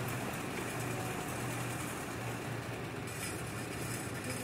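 Small red Farmall tractor's engine running steadily at low speed with a low hum while the driver balances it on a tilting beam.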